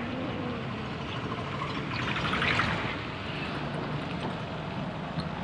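Steady noise of a vehicle on the move, engine and road noise heard from aboard, swelling briefly louder about two seconds in.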